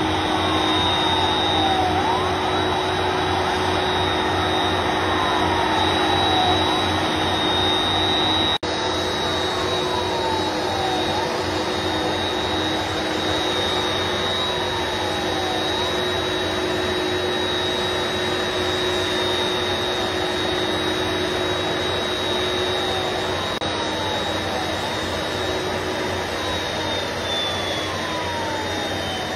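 Airbus Beluga ST's twin turbofan engines running at taxi power: a steady jet whine and rush with a high steady tone over it. A fainter falling tone repeats every two seconds or so.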